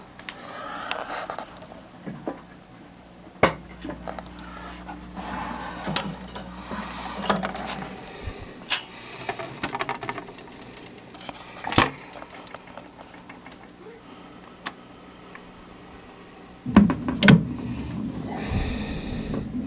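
Vintage console stereo record changer being handled and started: scattered clicks and knocks from the mechanism, with a low hum for a few seconds. Near the end a louder thump and low rumble as the record begins to play.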